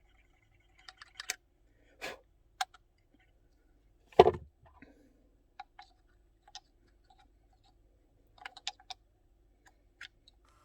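Irregular clicks and light knocks of an old Super 8 movie camera being handled while its rusty battery terminal is worked at, with one louder knock about four seconds in.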